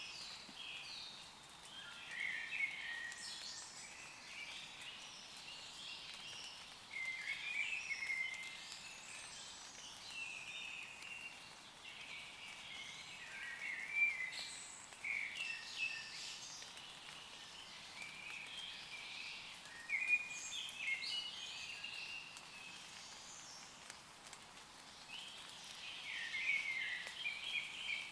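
Woodland birds singing and calling, many short chirping phrases overlapping throughout, with a faint hiss of light rain underneath.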